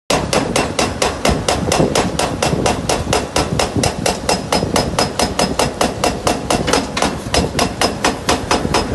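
Excavator-mounted hydraulic breaker hammering into the concrete of a culvert, a rapid, even train of sharp metallic blows at about five or six a second.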